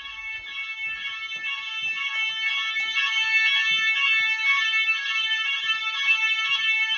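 Electronic fire alarm sounder giving a continuous, shrill, high-pitched tone with a fluttering pulse. It grows louder over the first three seconds, then holds steady.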